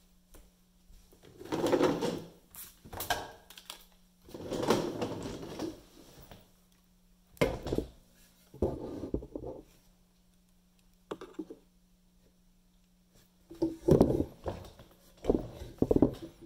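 Handling noises close to the microphone: a run of irregular knocks, scrapes and rustles, the loudest near the end, over a faint steady hum.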